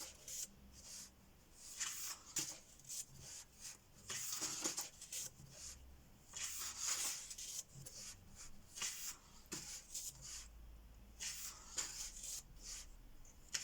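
Paper pages of a paperback colouring book being turned one after another, each turn a short papery swish, about every two to three seconds.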